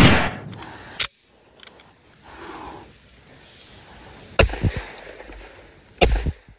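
A sharp click at the start, then two pistol shots about a second and a half apart, the second louder, over a steady high insect buzz.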